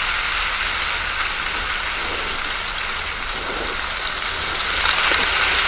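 Wind gusting across a phone microphone, with a low rumble, while dry leaves rustle and skitter across asphalt. The noise is steady and grows a little louder near the end.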